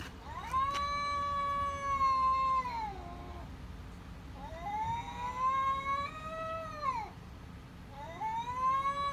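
A cat yowling: three long drawn-out calls, each rising, held level for a second or two and then falling away. The last call runs on past the end.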